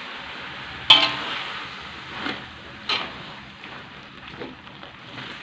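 Stir-frying in a wok: mustard greens and sauce sizzling steadily while a metal spatula turns them, knocking against the wok. One loud ringing clank comes about a second in, then a few lighter knocks.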